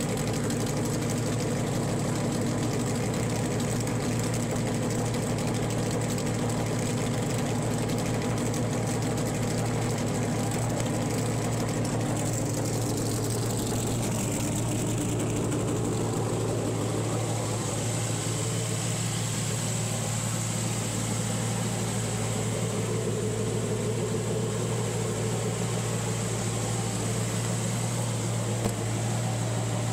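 NASCAR Xfinity Series Toyota GR Supra race car's engine idling steadily.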